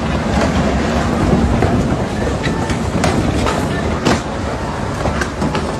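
Strong wind rushing and buffeting the microphone, a loud, heavy rumble with scattered clicks and rattles through it.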